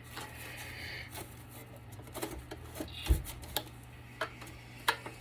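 Scattered light clicks and knocks of hands and tools working at a battery backup's casing to get its cover off, with one duller thump about three seconds in.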